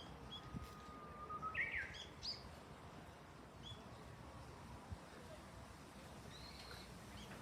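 A Japanese bush warbler sings its song once, faintly: a long held whistle, then a quick flourish of higher notes about two seconds in. A few short, faint chirps follow.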